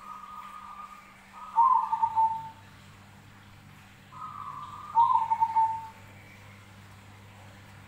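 Zebra dove (perkutut) cooing: two song phrases about three seconds apart. Each starts with a softer note and goes into a louder run of quick, slightly falling coos.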